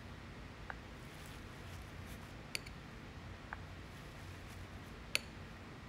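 Quiet room hum with a few light, sharp ticks and clicks spread out over several seconds, from small tools and supplies being handled at a work table.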